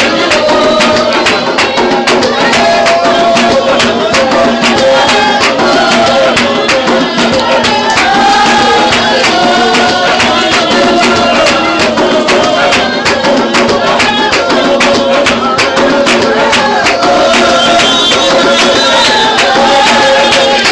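Spiritual Baptist congregation singing a hymn together over a steady, rhythmic percussive beat.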